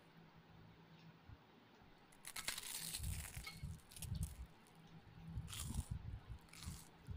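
Eating sounds: fingers pulling apart a whole rohu fish in curry on a steel plate. The sounds come in irregular bursts, starting about two seconds in.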